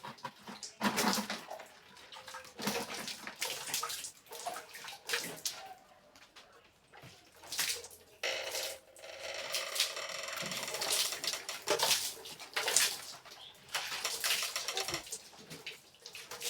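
Household washing: water splashing and items knocking and clattering, with a steadier run of water for a few seconds about eight seconds in.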